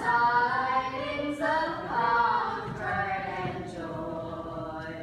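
A choir of young voices singing a slow melody in long held notes, trailing off near the end.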